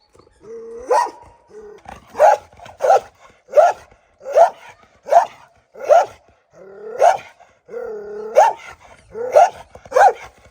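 A dog barking over and over, about a dozen short, loud barks at a little over one a second. A few of them start from a lower drawn-out whine.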